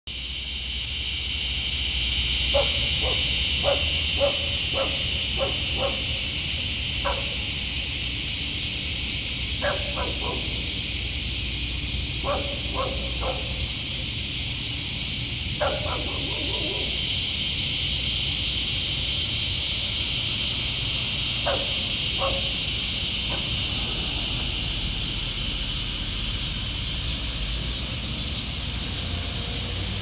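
A steady, high-pitched insect chorus, with a dog barking in short runs of several barks, five or six times.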